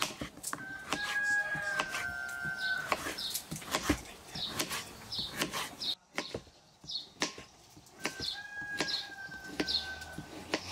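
Kitchen knife slicing through a peeled zucchini and knocking on a wooden cutting board, a quick series of sharp cuts, several a second. Behind it a rooster crows twice, a long call held at one pitch, near the start and again near the end.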